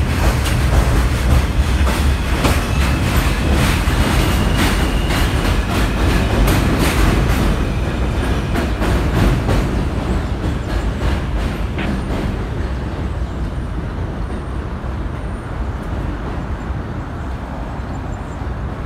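A New York City Subway G train running through the station without stopping, its wheels clacking rapidly over the rail joints under a heavy rumble. The clacking thins out after about eight seconds, and the noise slowly fades as the train pulls away down the track.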